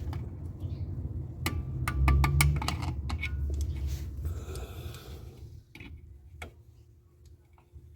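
Light metallic clicks and small knocks of pliers working the brake shoe retaining clips on a VW Beetle's rear drum brake, some in a quick cluster and some spaced out, over a low rumble that fades after about five seconds.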